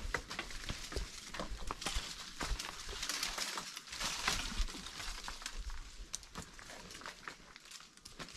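Oak leaves and twigs rustling and crackling, with many small snaps and clicks, as someone moves about in the branches of the tree; loudest a few seconds in, then fading.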